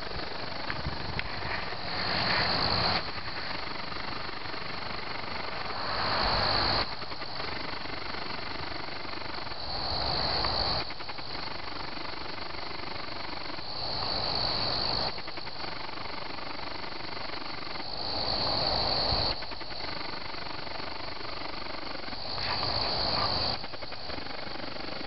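Crickets chirping in a steady, high trill. About every four seconds a louder, rougher swell of sound rises for about a second.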